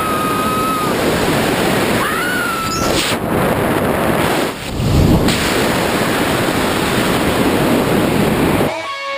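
Wind rushing hard over a camera microphone during a tandem parachute descent, with a high whistling tone in the first second and again between two and three seconds in. Guitar music starts near the end.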